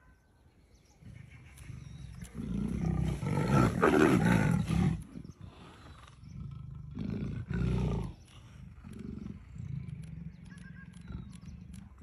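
Leopard snarling and growling: a long, loud snarl beginning about two seconds in, then shorter and weaker snarls.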